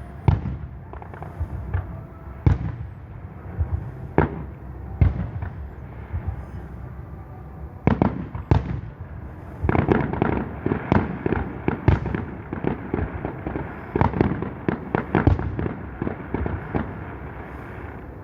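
Fireworks display going off: a few separate bangs at first, then from about eight seconds in a dense run of rapid bangs, the display's finale.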